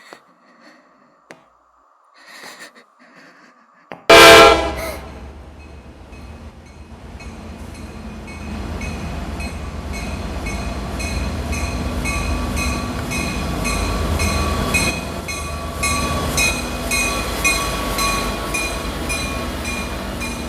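A train horn blasts suddenly about four seconds in and dies away, then a train rumbles in, building to a steady, rhythmic clickety-clack of wheels on rail joints.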